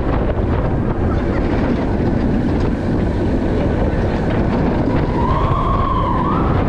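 Vekoma suspended family coaster train running at speed through banked turns: a steady, loud rush of wind and rumble of the wheels on the steel track. A brief rising-and-falling whine comes in about five seconds in.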